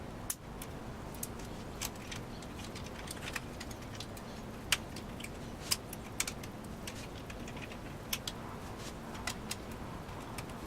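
Scattered light clicks and taps at irregular intervals, over a steady background hiss, as of small hard parts being handled.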